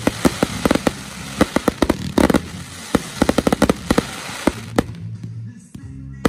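Fireworks finale: aerial shells bursting in rapid succession, many sharp bangs over dense crackling. About three-quarters of the way through it thins out to a few scattered bangs.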